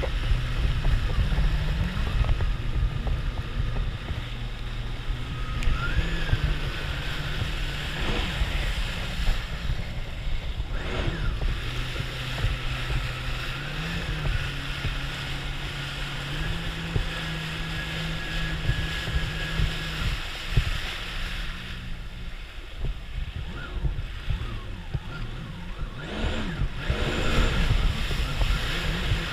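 Yamaha VX Sport WaveRunner's four-stroke engine running under way, its note stepping up and down with the throttle over the rush of spray and wind. About three-quarters of the way through the engine note falls away for a few seconds, then picks up again near the end.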